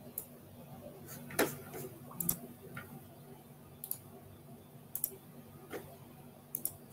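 Light clicks and taps at a computer, about a dozen irregularly spaced, the loudest a tap about a second and a half in, over a low steady hum.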